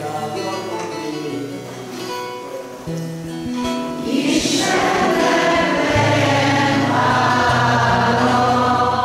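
A group of voices singing a hymn over long held instrumental chords, getting louder about four seconds in.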